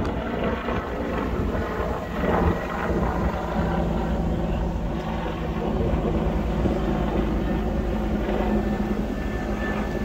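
Steady engine drone with a low hum, swelling briefly about two and a half seconds in.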